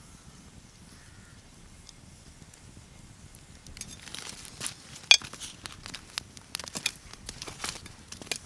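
Faint room tone, then from about four seconds in a quick, irregular run of light metallic clinks and clatter, as of small steel pieces being handled and knocked together.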